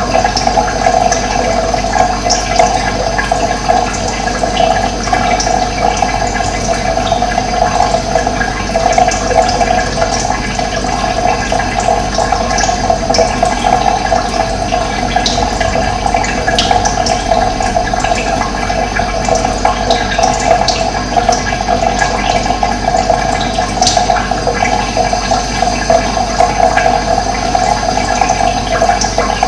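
Running water flowing steadily, with a few brief high bird chirps scattered over it.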